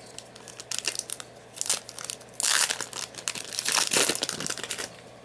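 Foil booster pack wrapper crinkling as it is handled and torn open, light crackles at first, then louder, denser rustling from about halfway through.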